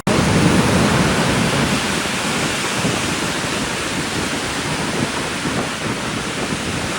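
Ocean surf breaking and washing up the beach: a steady rush of noise, loudest just after it begins and easing a little.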